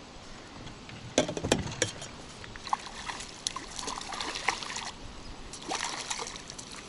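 Hooked fish thrashing and splashing at the surface as it is scooped into a landing net, starting sharply about a second in and going on in irregular splashes.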